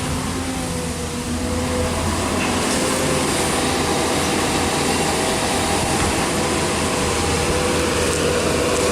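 Hyundai 220LC-9S excavator running: a steady diesel engine drone with steady whining tones, getting slightly louder about a second and a half in.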